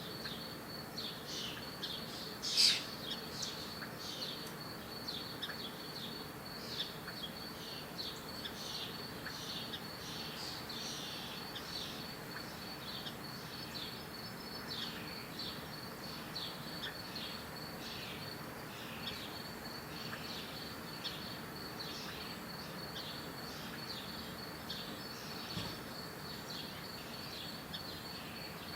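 Songbirds chirping outdoors: a run of short, quick downward-sweeping chirps repeated about once or twice a second, with one louder call about two and a half seconds in, over a steady high-pitched whine.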